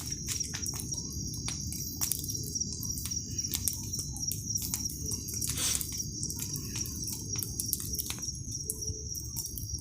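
Wood bonfire burning, with frequent irregular sharp crackles and pops over a steady low rush of the flames. A steady high-pitched whine runs underneath.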